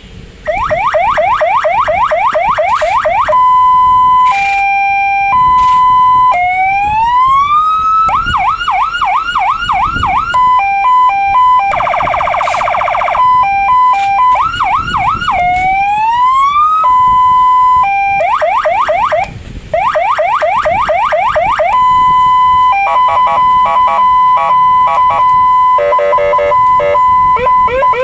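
CJB-200W electronic siren box sounding a sequence of different siren tones, switching every few seconds: fast yelping sweeps, steady tones, slow rising wails, a brief buzzy horn blast in the middle, and rapid chopped warbles near the end.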